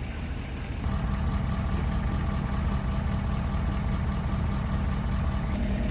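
Vehicle engine idling steadily, its hum growing a little louder about a second in and then holding even.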